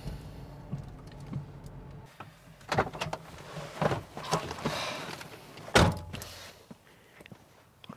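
Car's low engine hum that stops about two seconds in, followed by clicks and knocks of a car door being opened and a loud door thud near six seconds in.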